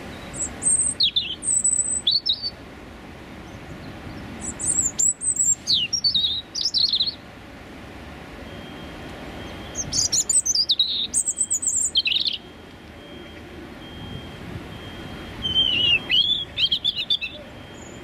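Male European robin singing its territorial song: four short phrases of high, thin notes that quickly rise and fall, a few seconds apart, over a steady low background rumble.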